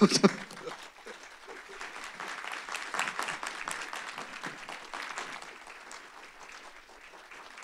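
Audience applauding: many people clapping, building to its loudest about three seconds in, then slowly dying away.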